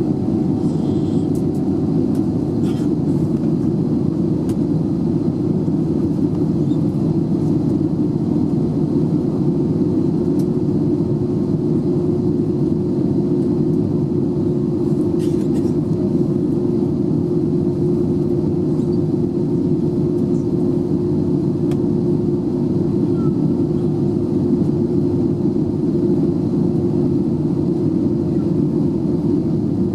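Steady cabin noise of an Airbus A320 on its descent, heard from a window seat over the wing: a constant low rumble of engines and airflow, with a few faint clicks.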